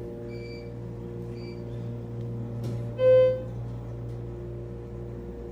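Schindler traction elevator cab with a steady low hum, two faint short high beeps, and then one loud electronic chime about three seconds in that fades quickly: the elevator's arrival signal.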